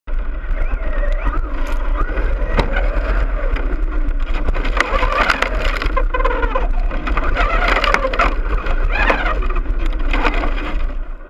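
Electric RC truck's brushless motor whining up and down in pitch with the throttle, with gravel crunching and scattered knocks from the tyres and chassis, heard through its on-board camera.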